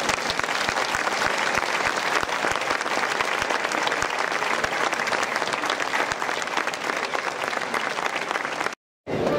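A large crowd applauding, dense and steady clapping that cuts off abruptly near the end.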